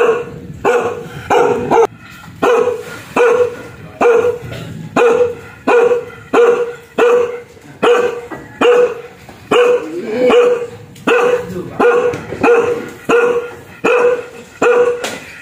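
A single short-coated brown dog barking fiercely and steadily, about three barks every two seconds, each bark a loud, full-throated bow-wow repeated without a pause.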